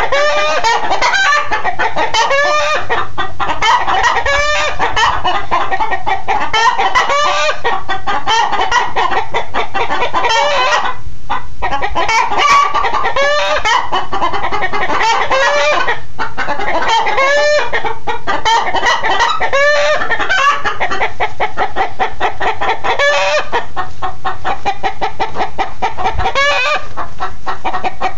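Chickens clucking and cackling nonstop, many quick calls overlapping, with a brief lull about eleven seconds in.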